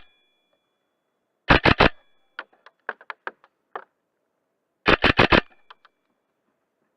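Airsoft gun firing two short full-auto bursts of four or five shots each, about a second and a half in and again about five seconds in, with a brief ringing tone after each burst. Fainter single clicks and cracks sound between the bursts.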